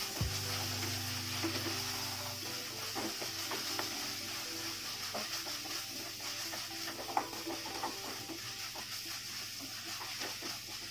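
Onion-tomato masala sizzling in hot oil in a pan while a wooden spatula stirs and scrapes it, with irregular small scraping clicks over a steady sizzle. The masala is being fried until the oil separates from it.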